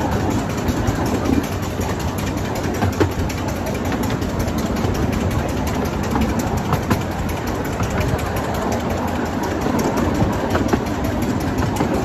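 Steady rumble and clatter of a miniature steam train's open carriages running along the track, heard from on board, with scattered sharp clicks.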